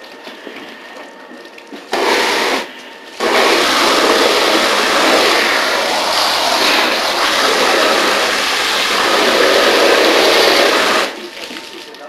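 Firefighting hose nozzle spraying water. It opens in a brief burst about two seconds in, then runs as a loud, steady hiss of spray for about eight seconds before shutting off suddenly.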